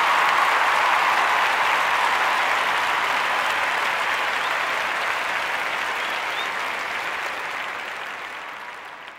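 A crowd applauding, dense and even, fading out over the last few seconds.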